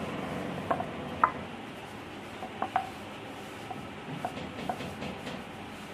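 Fingers rubbing dry flour over an oiled, rolled-out dough round on a wooden board: soft rubbing with about half a dozen light clicks and taps scattered through, over a steady background hiss.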